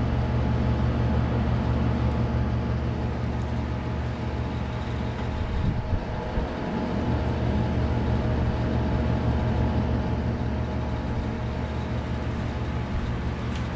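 Steady low machine hum of room ventilation equipment, with a few faint handling noises from tubing being worked through fabric.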